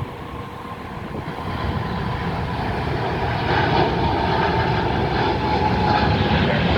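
Jet engines of a Turkish Airlines Boeing 777 twinjet on takeoff, rising in loudness over the first few seconds and then holding steady, with a whining tone over the rumble.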